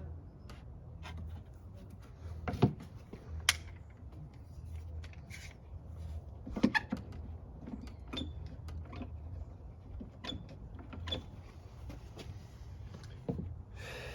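Scattered knocks, clicks and creaks of plywood pieces and tools being handled, over a steady low hum.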